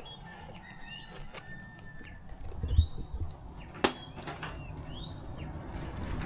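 Birds chirping: a few short, separate high notes, each sweeping up in pitch. There are several sharp clicks and a dull thump about three seconds in.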